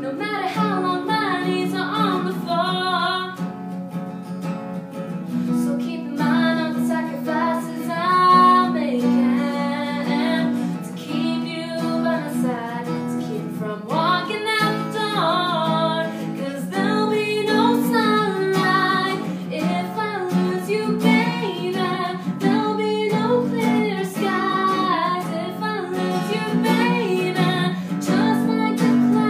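A woman singing a slow pop ballad, accompanied by an acoustic guitar. The voice drops out briefly a few seconds in while the guitar carries on.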